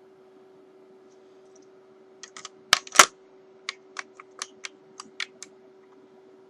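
Small metal guitar bridge parts being handled: a run of sharp clicks and taps, the two loudest about two and a half to three seconds in, followed by about nine lighter ones. A faint steady hum runs underneath.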